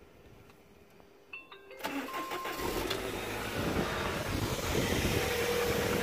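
Land Rover Freelander's 1.8 K-series four-cylinder petrol engine being started: a few faint clicks, then a short crank, the engine catches about two seconds in and runs on at a steady idle. The car has a lumpy idle that the technician suspects comes from a faulty camshaft position sensor (code P0340).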